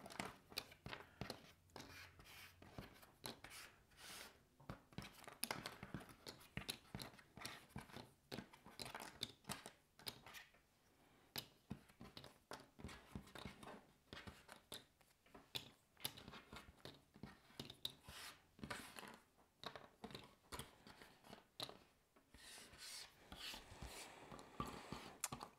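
Faint, scattered clicks and light scrapes of cardboard Ravensburger jigsaw pieces being picked up, sorted and slid about on a wooden tabletop.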